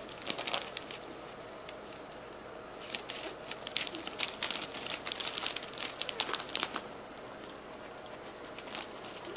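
Chihuahua puppy's claws scratching and rustling at a plaid fabric dog bed as it digs and turns in it, in a short burst of quick scratches just after the start and a longer run from about three to seven seconds in.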